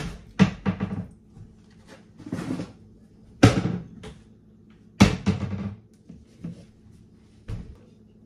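Household clatter: a series of sharp knocks and bangs, like cupboard doors shutting and dishes being moved, the loudest right at the start and about three and a half and five seconds in.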